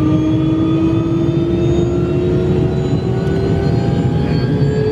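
Robinson R66 helicopter's Rolls-Royce RR300 turboshaft engine spooling up during start, its whine climbing slowly and steadily in pitch over the low rumble of the turning main rotor, heard from inside the cabin.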